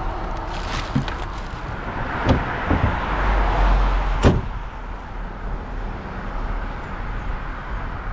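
A motor vehicle running steadily, with two sharp knocks a couple of seconds apart, the second the loudest, like a car door or hatch shutting.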